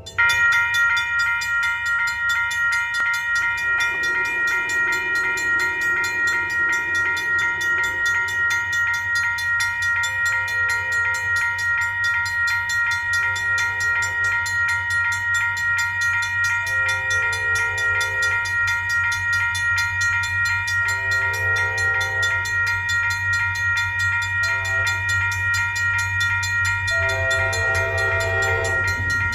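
Railroad grade-crossing electronic warning bell starting suddenly and dinging rapidly and steadily while the crossing is activated. From about ten seconds in, the approaching ACE train's horn sounds in a series of separate blasts, quieter than the bell, with the last blast the longest.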